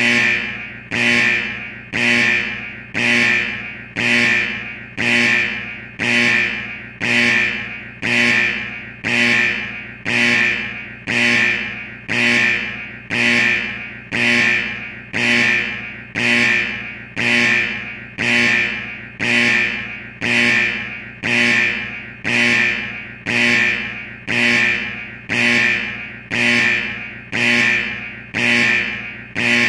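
Alarm sound effect: a loud alarm tone repeating about once a second, each pulse starting sharply and fading away before the next.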